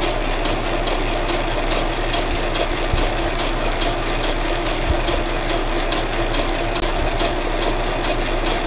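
Metal lathe running with its chuck spinning: a steady mechanical hum with a light, regular ticking about three times a second.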